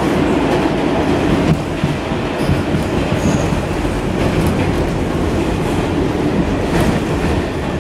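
R46 subway car running at speed through a tunnel, heard from inside the car: a steady, loud rumble of wheels on rail, with occasional clacks over rail joints.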